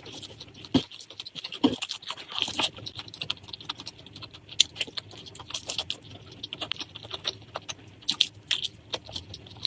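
Close-up eating sounds: wet chewing and smacking of a mouthful of rice and curry, a string of short irregular clicks and squelches.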